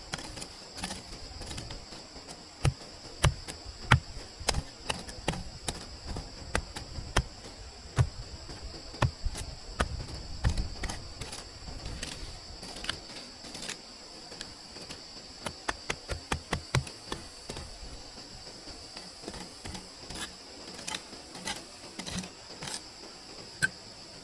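Irregular close knocks and clicks, some in quick runs of several a second, over a steady high-pitched hiss.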